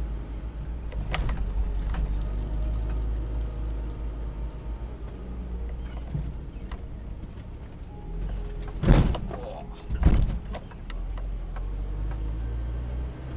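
1989 Mitsubishi Pajero driving over beach sand and rock, heard from inside the cab: a steady low engine rumble with small rattles and jangling, and two loud knocks about nine and ten seconds in.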